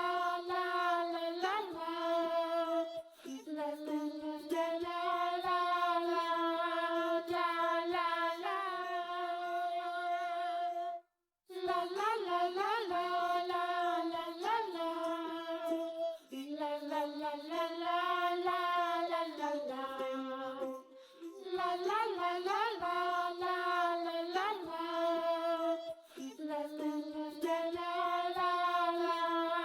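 Background music: a single high voice singing a wordless melody in long held notes and short phrases, with a brief break about eleven seconds in.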